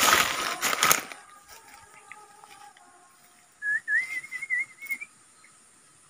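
A person whistling one call that rises and then wavers up and down for about a second and a half, starting a little past halfway: a call to bring a young hand-raised yellow-vented bulbul (trucuk) back. A loud rustle fills the first second.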